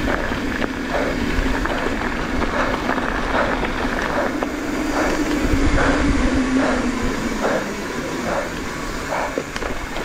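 Mountain bike rolling fast over a dirt trail: continuous tyre and rolling noise with repeated knocks and rattles from bumps, and a steady hum that stops about three-quarters of the way through.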